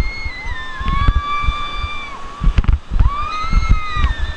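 River water sloshing and splashing around a raft, with wind and spray thumping on the microphone. Over it come several long, high-pitched whoops from people on the raft, one about a second in and another near three seconds.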